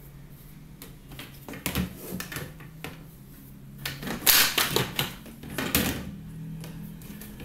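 Plastic rollers being set by hand into a plastic egg-turner tray: scattered light knocks and clatters, with a busier, louder cluster a little past the middle.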